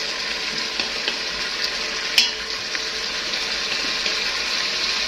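Chicken drumsticks sizzling in hot oil as they brown in a stainless steel Instant Pot inner pot, stirred with a wooden spoon. A steady hiss, with a few light clicks and one sharp knock about two seconds in.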